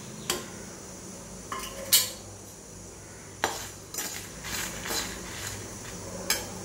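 Steel spatula scraping and clinking against a stainless steel kadai as whole spices (dried red chillies, coriander, fennel, cumin) are stirred while dry-roasting, with a few sharp metal knocks, the loudest about two seconds in.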